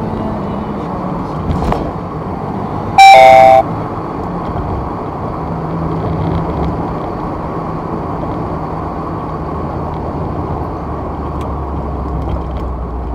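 Cabin road and engine noise of a Porsche 944's four-cylinder engine on a rough road, with a thump about one and a half seconds in. About three seconds in, a short, very loud electronic chime stepping down in pitch sounds: the dashcam's alert, set off because it takes the jolts of the bad road for an accident.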